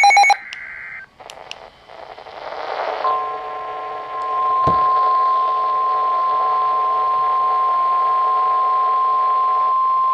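NOAA Weather Radio alert: a short burst of SAME digital header tones at the start, a hiss of static, then the steady 1050 Hz warning alarm tone from about three seconds in, announcing a new warning. A single knock comes about four and a half seconds in.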